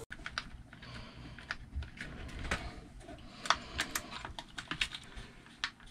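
Irregular light clicks and taps of a hand screwdriver and small plastic parts as the plastic motor gear casing of an FTX Outlaw RC buggy is fitted and screwed down, with a quick run of clicks in the middle.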